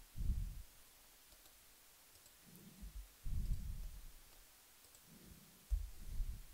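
Faint, muffled clicks and low thumps from a computer mouse and keyboard being used at a desk, in three short clusters.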